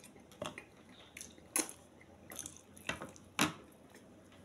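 Short, wet smacking and squelching eating sounds from hand-eating okra stew and amala. Four sharper smacks come at irregular intervals of about a second, the loudest near the end.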